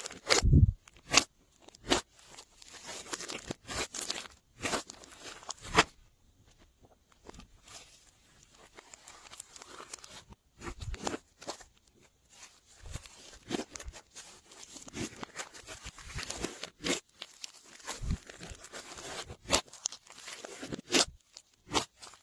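Glossy slime being kneaded and stretched by hand, giving irregular sticky pops and crackles, with a quieter pause a few seconds in.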